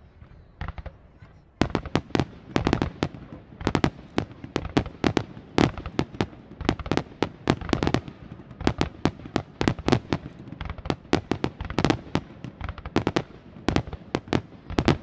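Aerial firework shells bursting: a few scattered bangs at first, then from about a second and a half in a rapid, dense barrage of sharp reports, several a second.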